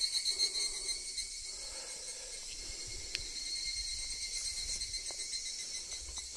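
Insects chirring steadily in several high, even, finely pulsing tones.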